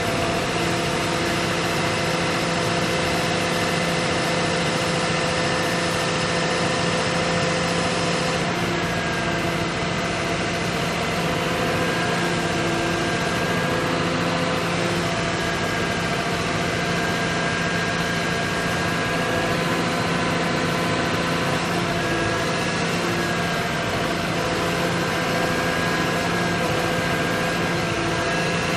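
Caterpillar excavator's diesel engine running steadily at an even speed, a constant hum with a thin high whine above it.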